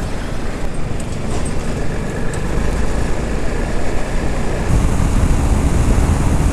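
Motorcycle riding on a highway, its engine running under a steady rush of wind and road noise. About two-thirds of the way in the sound gets louder, with more low rumble.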